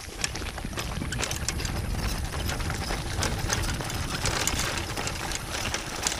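Mountain bike rattling and rumbling over a rough, stony dirt track, tyres crunching on loose gravel, with a steady stream of sharp clicks and knocks from the bike.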